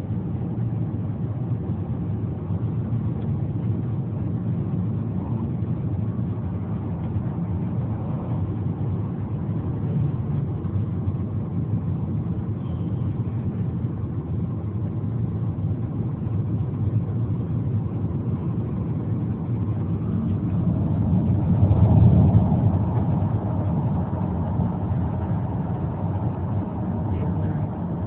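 Road noise heard inside a moving car's cabin: a steady low drone of tyres and engine while driving. It swells louder for a few seconds about twenty-two seconds in.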